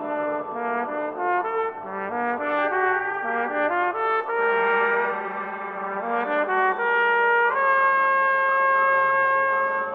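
Solo trumpet with an electronic accompaniment in a contemporary piece: a busy passage of quickly changing notes layered with other pitches, then a step up to one long held note over the last couple of seconds.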